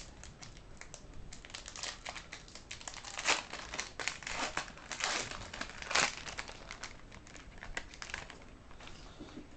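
Foil wrapper of a 2010-11 SP Authentic hockey card pack crinkling and tearing as it is ripped open by hand, in irregular rustling bursts, the loudest about three, five and six seconds in.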